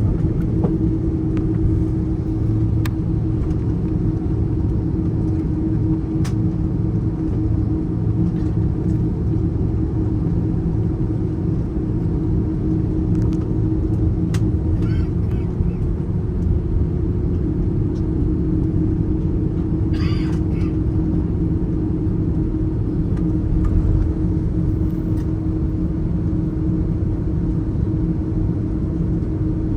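Airbus A330 jet engines at takeoff power heard inside the passenger cabin: a loud, steady rumble with a constant hum, and a few faint cabin rattles and ticks.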